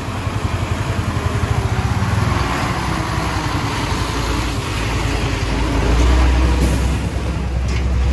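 Motorcycle engine running while riding, a steady low rumble with noise across the range that grows louder about six seconds in.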